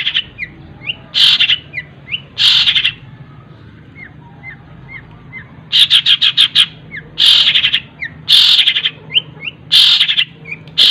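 Long-tailed shrike (cendet) singing a fast, dense song: harsh bursts of rapid repeated notes every second or two, with short rising chirps in between. The fill-ins mimic other birds. A faint steady low hum runs underneath.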